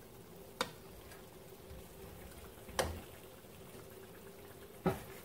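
Donuts frying in hot oil in a non-stick wok, a faint steady bubbling hiss, with three short clicks of the metal slotted skimmer against the pan as finished donuts are lifted out.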